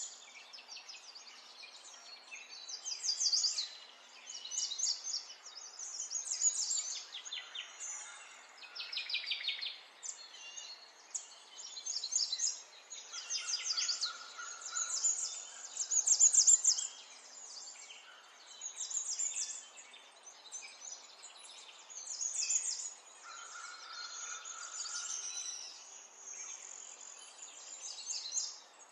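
A small songbird singing: bursts of rapid high trills and chirps every second or two, some gliding downward, with a couple of held whistled notes.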